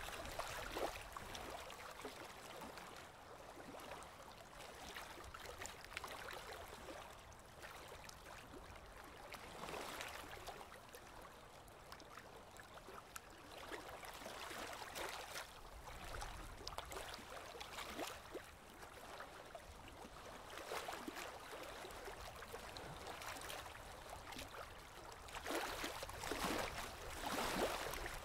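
Faint trickling and bubbling of water in a goldfish aquarium, with fine ticks, swelling louder now and then and most strongly near the end.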